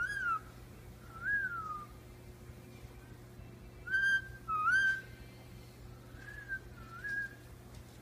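Indian ringneck parakeet whistling: six short, clear notes that each rise and then fall, in three pairs, the middle pair loudest and the last pair softer.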